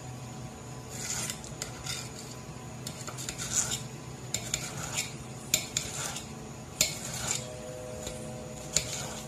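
Knife slicing a peeled pineapple on a plate: irregular scrapes and clicks of the blade against the plate, with a few sharper knocks in the second half.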